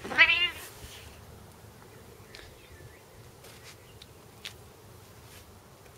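A ginger domestic cat meows once, a short wavering call in the first half second. After it there is only faint background with a few soft clicks.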